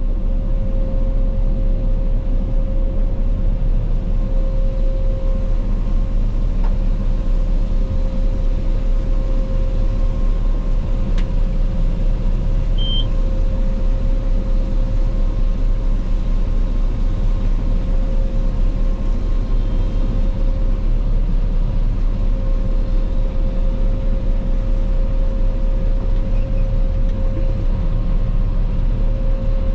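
Claas Lexion 480 combine harvester running steadily under work: a continuous low machinery drone with a steady whine over it.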